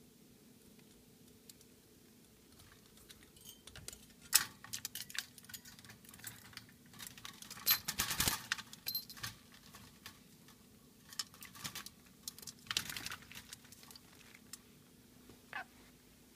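Black-capped lory bathing in its plastic water dish: three bouts of splashing and clattering, with quiet between them. A short falling squeak comes near the end.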